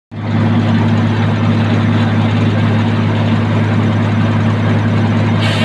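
Tractor engine running steadily at an even speed, powering a sawmill, with a constant low hum and no cutting sounds.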